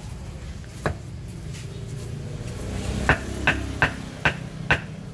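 Meat cleaver chopping boiled meat on a thick round wooden chopping board: a single chop about a second in, then a steady run of chops, about two or three a second, from about three seconds in.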